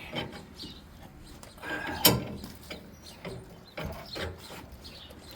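Open-end wrench turning the forcing screw of a ball joint press on a truck's lower control arm: irregular metal clicks and clanks as the wrench is swung and reset, the loudest about two seconds in.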